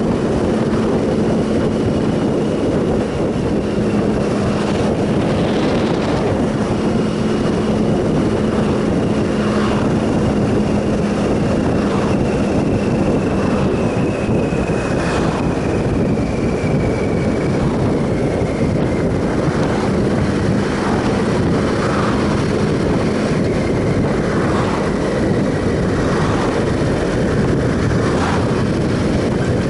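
2007 Triumph Sprint ST 1050's three-cylinder engine running at a steady road speed under loud wind rush. A thin high whine slowly drops in pitch through the middle.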